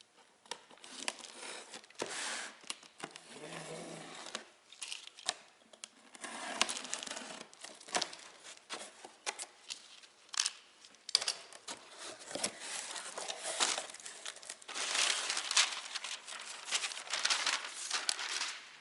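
A cardboard box being opened and its packaging handled: irregular crinkling and tearing, with scattered clicks and knocks.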